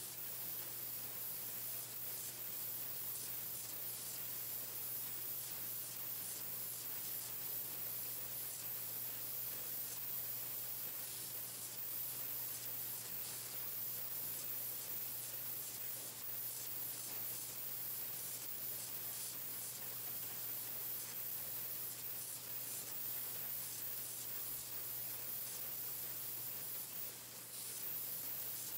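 Pencil painting machine running: a steady hiss with a low hum underneath, dipping briefly near the end.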